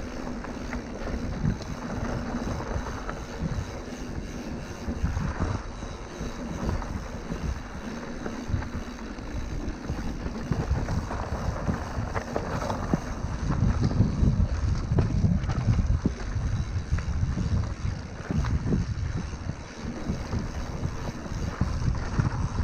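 Wind buffeting the microphone of a camera on a moving mountain bike, mixed with the uneven rumble of the bike rolling over a dirt trail.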